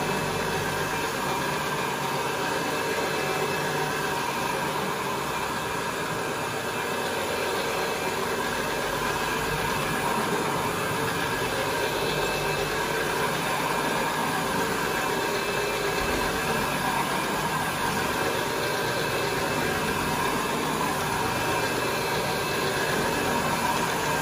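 Counter-rotating brush (CRB) carpet machine running as it is pushed over carpet, its two brushes spinning in opposite directions to agitate the carpet fibres. A steady motor hum with a whine over the brushing noise.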